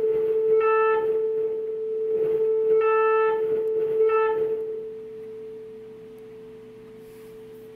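A 440 Hz sine test tone played through a speaker by a Rockford Fosgate Punch P400x2 car amplifier, with the volume turned up and down by hand. Three times the tone briefly turns buzzy as the amplifier goes into clipping. About five seconds in it is turned down and holds steady and quieter.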